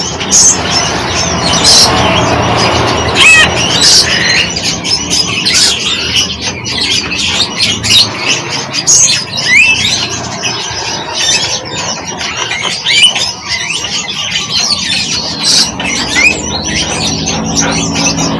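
Many songbirds chirping and squawking at once: a dense, loud tangle of short sharp calls and quick rising whistles that never lets up.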